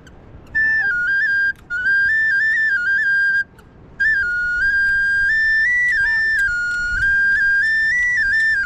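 A solo high-pitched flute melody, one note at a time moving up and down in small steps, in three phrases separated by short pauses.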